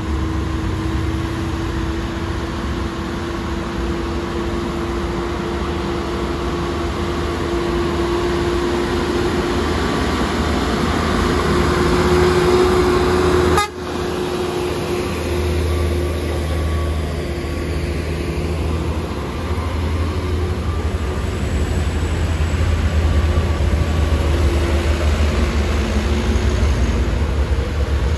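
Heavy diesel truck engine working uphill at low speed as a MAN tractor unit hauls a crane on a low-loader trailer, with a steady droning tone over the engine and passing traffic. About fourteen seconds in the sound breaks off abruptly and resumes as a deeper, heavier engine rumble.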